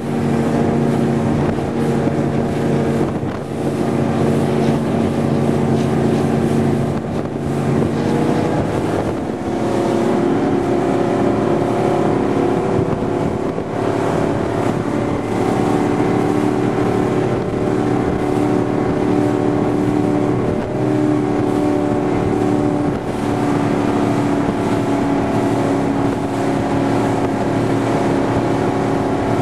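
Powerboat's 460 cubic-inch Ford big-block V8 running hard at speed, its pitch rising about eight seconds in and holding higher. Wind rushes over the microphone.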